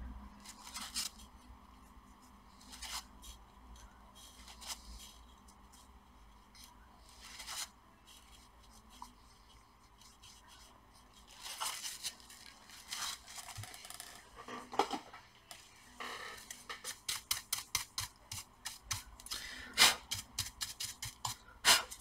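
Dry cotton swab and tissue rubbing old thermal paste off a laptop CPU in gloved hands. The strokes are scattered at first, then come as a quick run of short scrubbing strokes in the last few seconds, with a couple of louder scrapes near the end.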